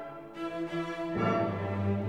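Background music: an orchestral arrangement of held bowed-string notes, moving to a new, fuller chord about a second in.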